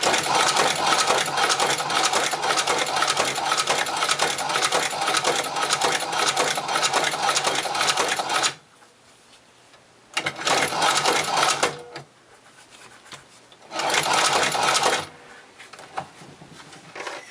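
Chinese shoe patcher leather sewing machine stitching through leather: one long run of rapid stitches lasting about eight and a half seconds, then after a pause two short runs of about a second and a half and a second.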